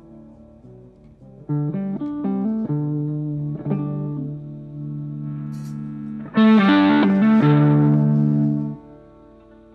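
Electric guitar through an amplifier, checked before the set: a run of single picked notes, then a loud distorted chord struck about six seconds in and held for about two seconds before being cut off.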